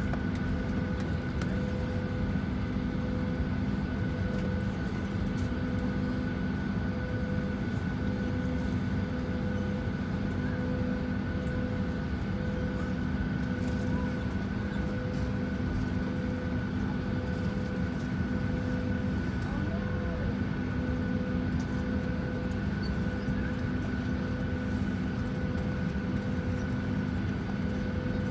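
Steady cabin noise inside a Boeing 737-900ER: a low rumble of air and machinery with a steady whine, and a fainter tone pulsing on and off about once a second.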